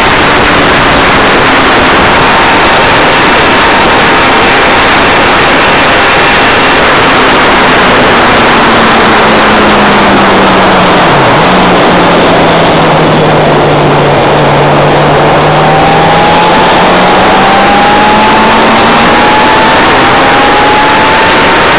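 Motorcycle engine on a track lap, nearly drowned by loud wind rush over the onboard camera's microphone. The revs fall as the bike slows through a bend, with a brief dip about halfway, then climb again in steps as it accelerates out through the gears.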